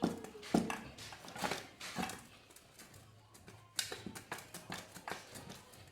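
Irregular knocks and clinks of metal washing-machine parts being handled, a few in the first two seconds and a quicker run about four seconds in.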